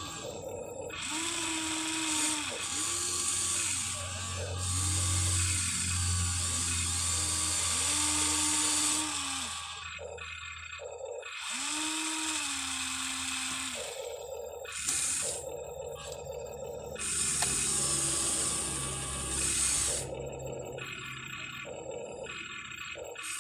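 Electric motors of a Huina 1593 RC excavator whining in a series of short runs, each rising in pitch as it starts and dropping as it stops, sometimes two running at once.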